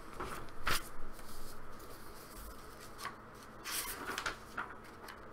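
Paper rustling as a handmade poetry zine is handled and its pages turned: a short rustle under a second in, then a cluster of rustles around three to four seconds in.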